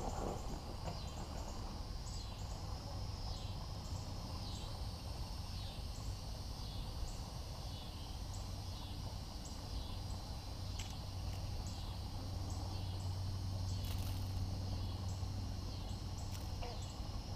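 Outdoor ambience: high-pitched chirping calls repeating about once or twice a second over a steady low hum.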